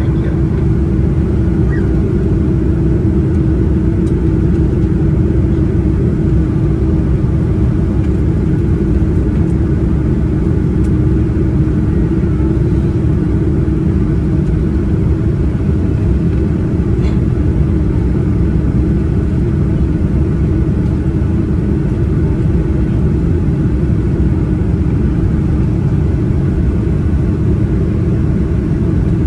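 Steady in-flight cabin rumble of a Boeing 787-9 airliner, engine and airflow noise heard from a window seat, with a steady low hum running through it.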